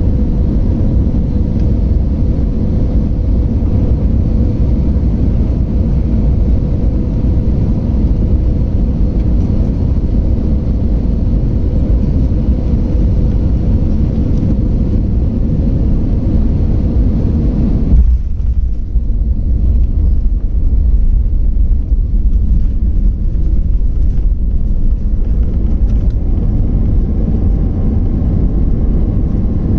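Airliner cabin noise: a steady deep rumble of engines and airflow. About eighteen seconds in there is a brief jolt, after which the higher part of the noise cuts away suddenly and a deep rumble with faint rattles remains.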